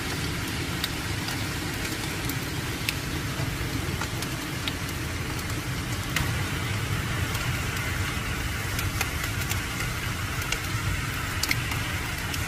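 Hail and rain falling steadily: a dense hiss with many scattered sharp clicks of hailstones striking hard ground, over a low rumble.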